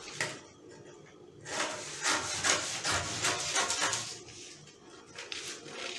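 Scissors cutting through a paper sewing pattern: a quick run of snips and crisp paper rustling, mostly from about a second and a half in to about four seconds in.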